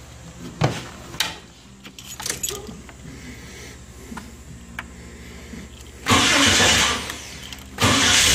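A few clicks and knocks, then the 1990 Jeep Wrangler's newly fitted remanufactured starter cranking the 4.2-litre straight-six. There is a short crank of under a second about six seconds in, then a second start attempt near the end after which the engine keeps running.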